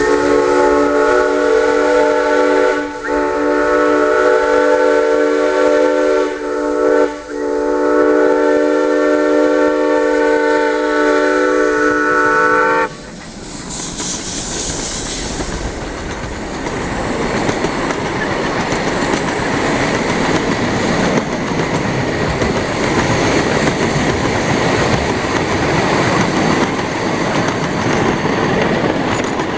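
Ride-on scale live steam locomotive's steam whistle sounding several tones at once in the grade-crossing pattern: long, long, short, long. It cuts off at the crossing, followed by a brief hiss of steam and then the steady rumble and rattle of the train's cars rolling past.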